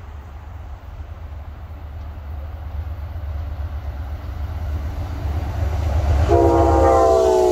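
Approaching train's low rumble growing steadily louder, then a locomotive's multi-chime air horn sounding a chord of several notes about six seconds in.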